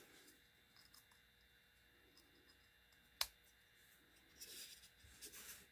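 Near silence with faint handling of a small plastic tank miniature: one sharp click about three seconds in, then a soft rubbing as it is moved on the play mat near the end.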